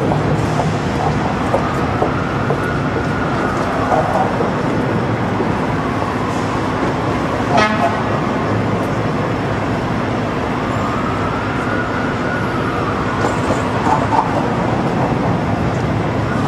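Steady city traffic noise with a distant siren slowly wailing up and down twice, and a short horn toot about halfway through.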